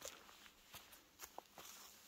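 A hiker's footsteps on the trail: a few soft, scattered steps that fade off towards quiet.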